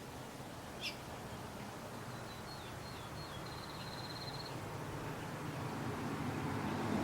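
A small bird calling over steady background hiss: one sharp chirp about a second in, then a few short down-slurred high notes leading into a quick high trill.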